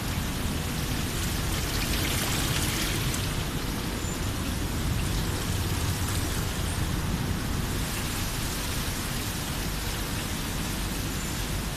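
Fabric rope washing machine running: a steady rush of splashing water over a low rumble, with no change throughout.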